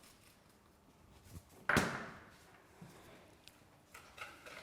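Kitchen clatter: one sharp knock about a second and a half in, fading over about half a second, with a few faint clicks around it.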